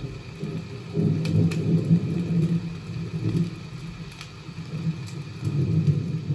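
Log fire burning: a low, uneven rumble with a few faint scattered crackles.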